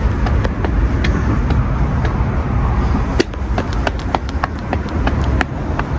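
Street ambience: a steady low rumble of city traffic with a run of short, sharp footstep clicks on pavement.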